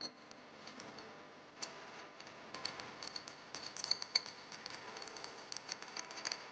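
Faint, irregular small clicks and taps from food preparation, several close together at times.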